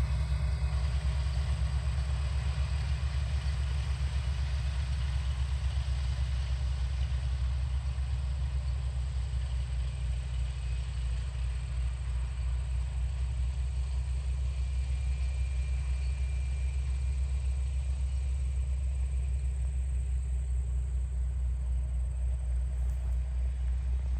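John Deere 8R tractor engine running steadily, a low, even drone heard from inside the cab.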